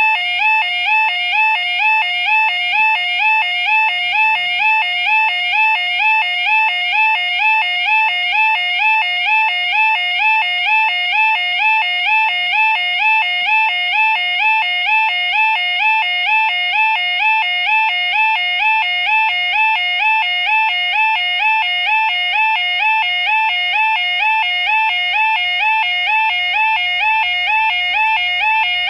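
UK level crossing yodel alarm sounding continuously while the barriers are down: a loud warbling tone that rises and falls about twice a second, warning road users that a train is approaching.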